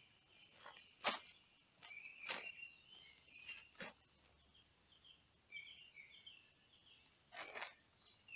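Woodland birds chirping and singing quietly throughout, with a handful of short, sharp rustles and knocks as boots are pulled off and set down on a waterproof ground sheet; the loudest comes about a second in.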